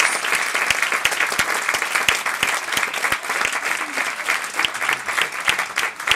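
Audience clapping steadily: dense applause from a crowd of listeners.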